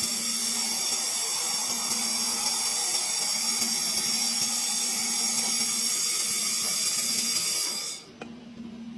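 Stick-welding arc sizzling steadily over a low hum, then cutting off about eight seconds in as the arc is broken, leaving only the quieter hum.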